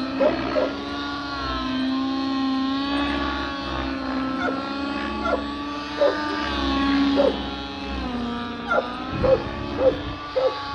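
Nitro engine of a 7HV nitro-converted RC helicopter running in flight, its pitch wavering up and down as it is flown through aerobatics. Short sharp sounds come and go over it, several in quick succession near the end.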